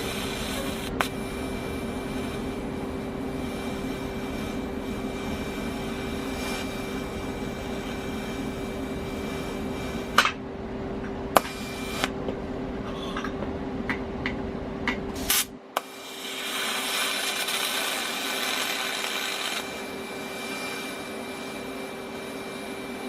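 TIG welder running with a steady hum and hiss while stainless steel is welded, with a few sharp clicks around the middle. About two-thirds through the low hum drops out and a brighter hiss follows for about three seconds.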